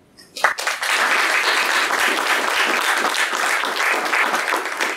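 Audience applauding: many people clapping, starting sharply about half a second in and holding steady, beginning to die away near the end.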